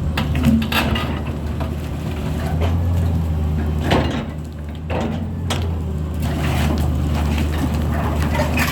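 Heavy diesel engine of a CAT machine powering a marble drill, running at a steady speed, with several metallic knocks and clanks on top.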